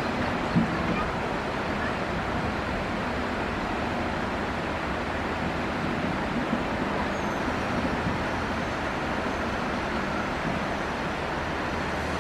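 Excavator's diesel engine running steadily under load, with a sharp knock about half a second in and a few fainter knocks later.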